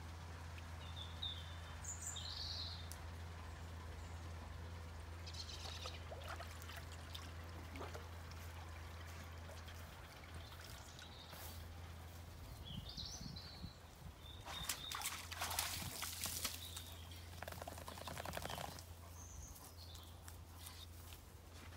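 Quiet rural ambience with a low steady hum and a few short bird chirps. Water splashes and trickles for several seconds about two-thirds of the way in.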